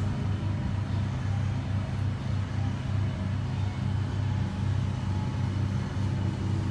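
Steady low machine rumble that holds one pitch throughout, with no revving or sudden knocks.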